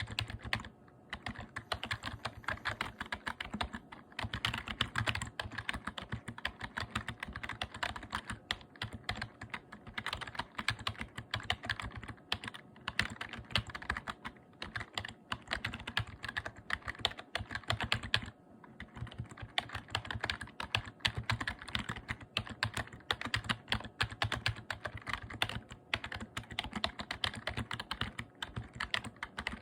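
Typing on a membrane keyboard: a fast, continuous run of key presses, with brief pauses about a second in and again a little past the middle.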